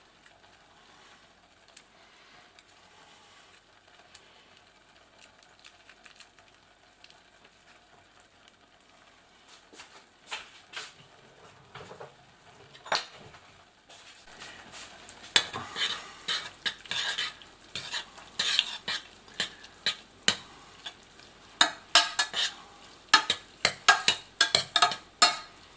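Instant black bean sauce noodles being stirred in a pot with a utensil. A faint steady hiss comes first. From about halfway through, quick clicks and scrapes of the utensil against the pot grow busier.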